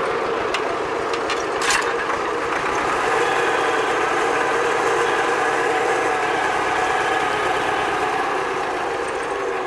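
T-25 tractor's two-cylinder air-cooled diesel running steadily, with a mechanical rattle and a sharp knock a couple of seconds in.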